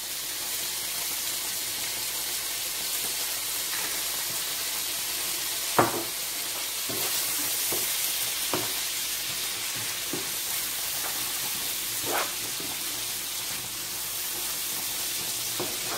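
Squid and king prawns frying in a frying pan with onions, garlic and ginger, sizzling steadily. A handful of short knocks from a wooden spoon against the pan come as the mix is stirred; the loudest are about six seconds in and about twelve seconds in.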